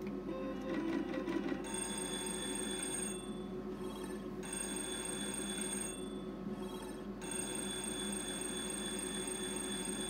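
Novomatic Sizzling Hot slot machine paying out: a short rhythmic ticking as the reels spin and stop, then its bell-like electronic win ringing in three stretches with short breaks as the line wins are counted up.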